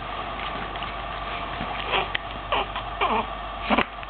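Newborn baby making short squeaky grunts: four quick ones in the second half, each sliding down in pitch, over a steady background hum.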